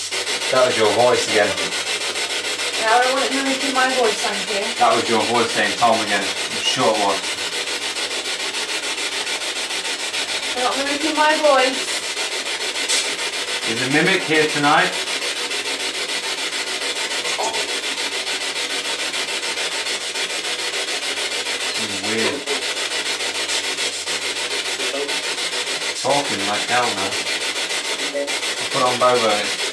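Ghost-hunting spirit box sweeping radio stations: a steady hiss of radio static broken several times by short snatches of voice, which the investigators take for spirit replies such as "I'm here".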